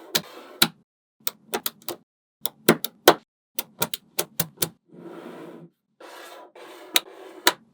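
Small magnetic balls clicking sharply as they snap onto one another, in irregular runs of clicks, with short stretches of balls rattling together in between.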